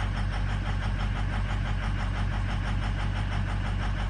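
Ford 6.0-liter Power Stroke V8 diesel idling steadily while still cold, shortly after start-up. The mechanic judges several of its injectors to be failing, cylinders 1, 7 and 3 the worst.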